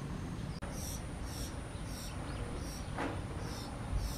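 Blue rock thrush fledgling calling: thin, high-pitched notes repeated about twice a second, starting about half a second in, over a steady low outdoor rumble.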